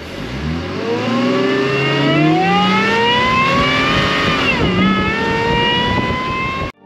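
Magnuson-supercharged Jeep Wrangler JK 3.6 L Pentastar V6 accelerating hard. Its pitch climbs steadily, drops briefly in a gear change about four and a half seconds in, then climbs again before the sound cuts off suddenly near the end.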